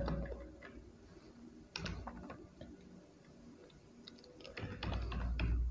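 Computer keyboard keys being typed: a few scattered keystrokes about two seconds in, then a denser run of key clicks near the end.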